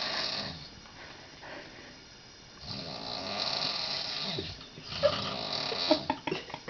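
A woman's very loud snoring: one snore tails off about half a second in, and a long snore runs from about two and a half seconds to nearly five. It is followed by a run of short sharp clicks near the end.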